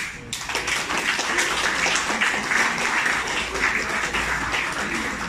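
Audience applauding: dense clapping that starts suddenly and keeps up steadily.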